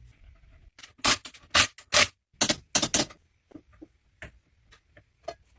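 A series of sharp metallic clicks in short irregular groups, strongest about one to three seconds in and fainter after: a hand ratchet or click-type torque wrench tightening a torque tube fastener toward 66 foot-pounds.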